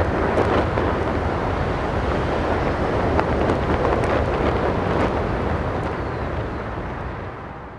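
Steady wind noise on the microphone, a rushing rumble with no other sound in it, fading out near the end.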